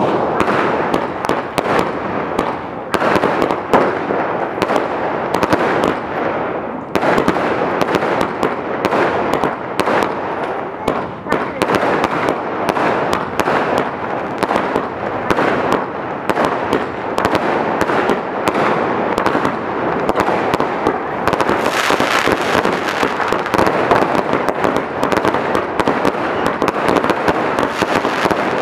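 A 100-shot firework cake firing shot after shot without pause: rapid, overlapping launches and aerial bursts with dense crackling. The crackle grows sharper and denser about three quarters of the way through.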